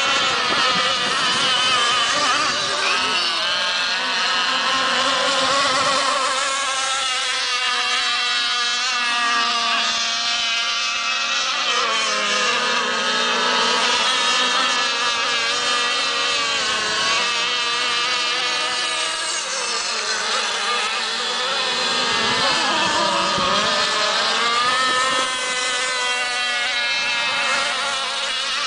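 Several radio-controlled racing boats' small engines running at high revs, a buzzy whine that rises and falls in pitch as the boats throttle and pass.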